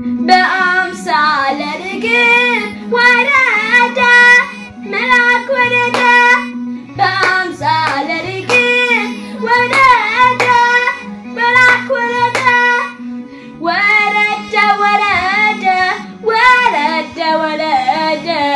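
A boy singing an Amharic Orthodox mezmur (hymn) in short repeated phrases, over a steady low instrumental backing tone.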